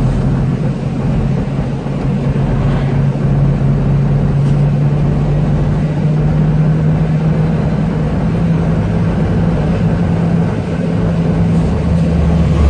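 Heavy diesel truck engine running steadily, heard from inside the cab as a low drone mixed with tyre and wind noise.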